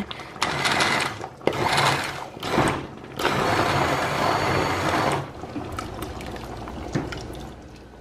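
Hand-held immersion blender running in a pot of soup in three bursts, the last and longest about two seconds, puréeing the cooked vegetables and pasta. After it stops, a couple of light knocks.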